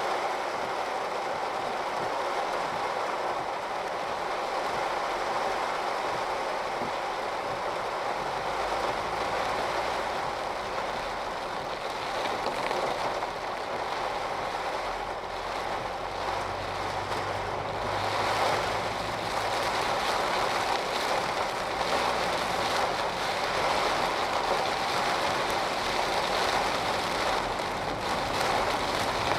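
Heavy rain falling in a steady downpour, a dense even hiss. A low hum joins in for several seconds in the middle.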